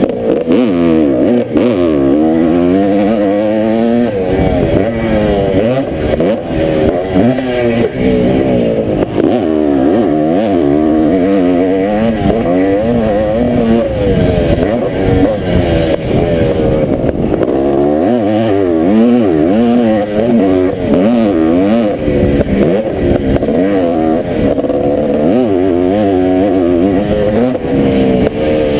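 1983 Honda CR480 two-stroke single-cylinder motocross engine revving hard under load, its pitch climbing and dropping again and again as the throttle opens and closes.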